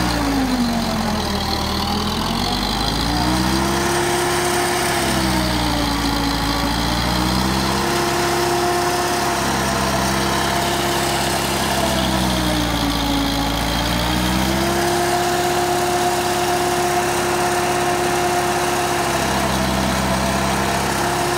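Romanian tractor's diesel engine running a PTO-driven forage chopper that is shredding maize stalks. The engine note sags and recovers three times, about a second in, around six seconds and around thirteen seconds, as the chopper is loaded with stalks.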